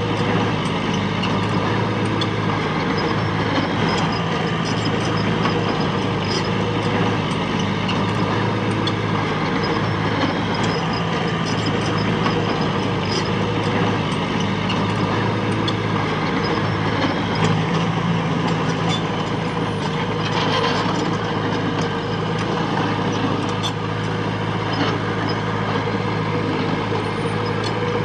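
Diesel engine of a heavy construction machine running steadily, with scattered light clicks and clanks over it.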